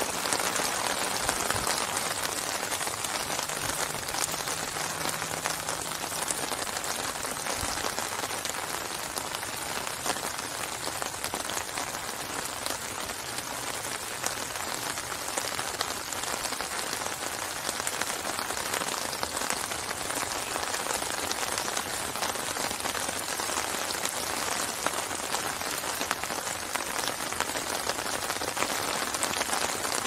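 Steady rain falling on open lake water: a dense, even hiss made of many small drops striking the surface.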